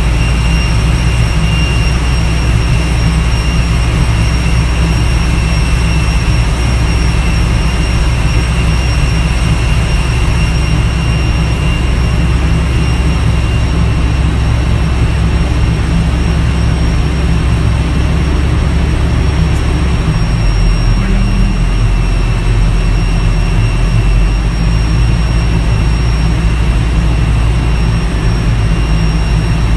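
A towbarless aircraft tug's engine drones heavily during an Airbus A320 pushback, under the aircraft's steady high turbine whine. The tug's low engine note shifts lower about two-thirds of the way in.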